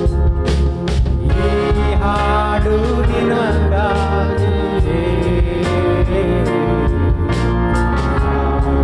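Kannada Christian worship song playing: band music with a steady bass, and a melody line that bends up and down around the middle.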